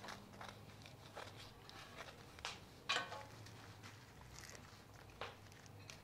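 Dried chiles negros being torn open and deveined by hand: faint, scattered crackles and rustles of brittle chile skin and stems, the sharpest about three seconds in. A faint steady low hum sits underneath.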